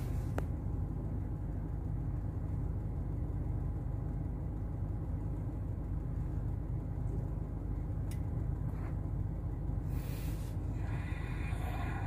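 Steady low background rumble, with a faint click just after the start and another about eight seconds in, and a brief hiss around ten seconds in.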